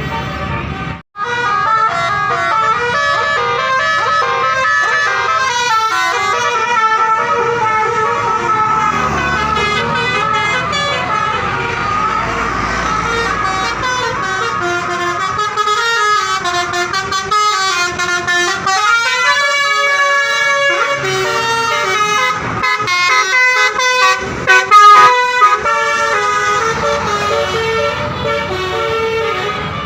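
Bus 'basuri' telolet horn, a set of tuned multi-tone horns, playing a long melody of stepping notes, some of them gliding. It breaks off briefly about a second in.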